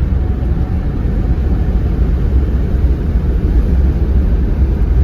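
Steady low rumble of a vehicle on the road: engine and road noise.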